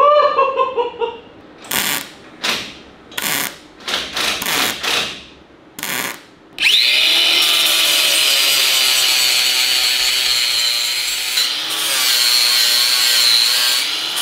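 Angle grinder grinding down fresh welds on a steel exhaust pipe: from about seven seconds in it runs steadily under load with a high whine. Before that come a brief rising vocal sound and several short bursts of noise.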